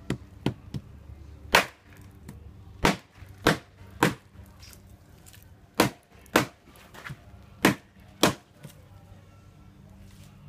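Machete chopping into a large fish on a wooden board: about a dozen sharp, uneven blows, the hardest ones in the middle stretch.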